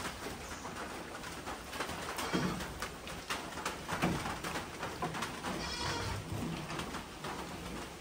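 Farm animal calls, among them a goat bleating about six seconds in, with a few light knocks.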